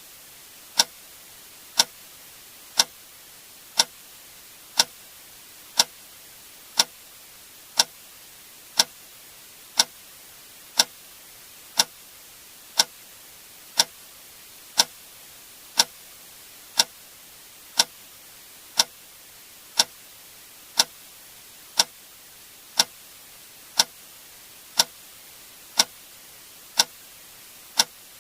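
A sharp click sound effect repeating evenly once per second, over a faint steady hiss.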